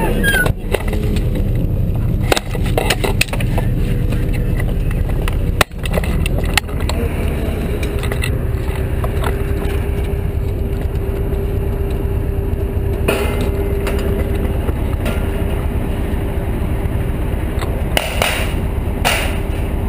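CV9035 infantry fighting vehicle's diesel engine running close by, a steady low rumble joined by a steady whine from about eight seconds in. A few sharp knocks and rattles of the rifle-mounted camera and gear come through in the first half.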